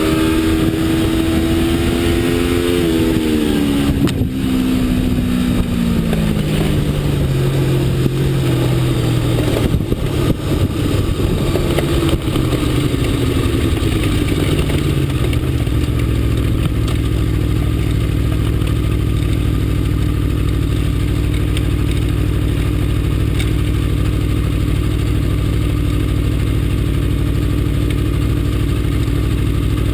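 Aprilia RSV4 V4 motorcycle engine slowing down: its note falls steadily over the first several seconds, rises and drops briefly again about halfway, then runs steadily at low revs for the second half.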